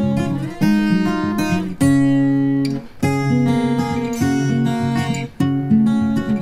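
Background music: acoustic guitar strumming chords, with a new chord struck about every second and a quarter.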